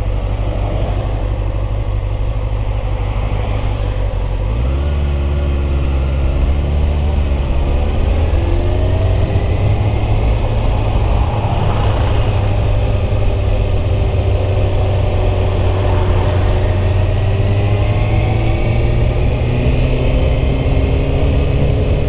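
Kawasaki Ninja 636 (ZX-6R) inline-four engine idling, then pulling away about four and a half seconds in. Its note then rises and falls through slow riding as the throttle is worked.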